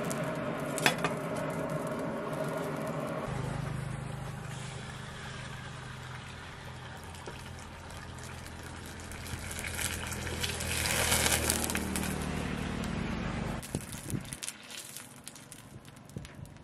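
Coal forge fire with its air blower running, then a red-hot steel blade plunged into quench oil in a square steel tube: the oil sizzles and crackles, swelling about ten seconds in, over a steady low motor hum that stops suddenly, followed by a few light knocks.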